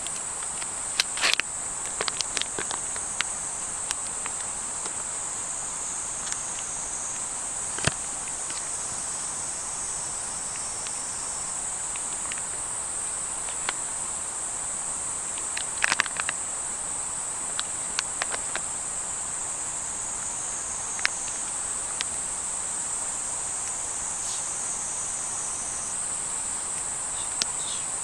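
Steady high-pitched chorus of insects trilling without a break, with sharp clicks and ticks scattered over it, several in a cluster about halfway through.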